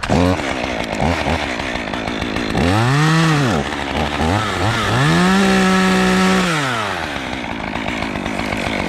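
Chainsaw revving up and falling back twice as it cuts a small piece of pine, the second rev held high for about a second and a half.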